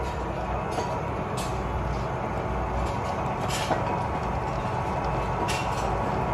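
A machine running steadily with a low hum, with a few faint knocks along the way.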